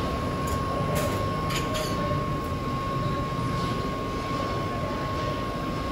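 Steady background din with a thin, constant high whine, and a few faint clicks in the first two seconds.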